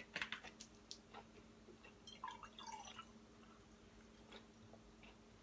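Faint wet mouth clicks and smacks of someone chewing food, scattered and soft, with a few short squeaky mouth sounds about two seconds in.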